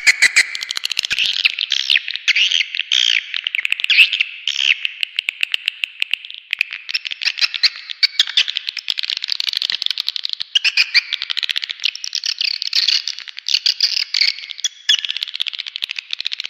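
Swiftlet calling-sound recording of the kind played to lure swiftlets into a nesting house: a dense, unbroken twittering of many swiftlets, fast high chirps and trills with sharp clicks mixed in.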